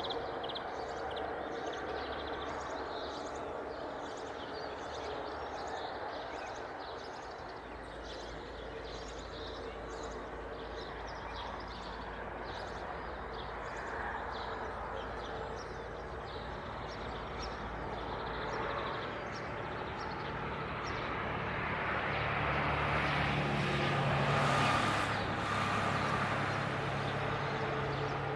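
Steady outdoor rumble with many short, high chirps through the first half, then a motor vehicle passing, growing louder to a peak about 25 seconds in and easing off.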